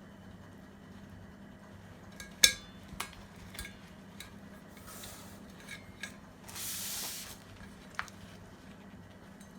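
Kitchen utensils and dishes handled while prawns are being cleaned: a few scattered sharp clinks and taps, the loudest with a short ring about two and a half seconds in, and a brief hiss a little before the end.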